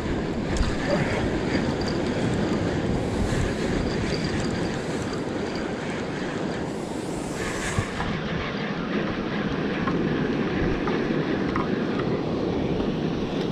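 Wind buffeting the microphone and sea surf washing over a rock shelf, with a spinning reel being cranked steadily as a fish is wound in.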